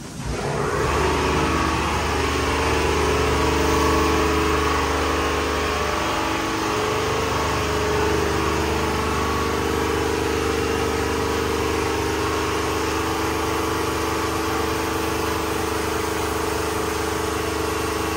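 Air compressor starting suddenly and running steadily, a motor hum with a hiss of air over it, supplying a gravity-feed spray gun that is painting a brake caliper.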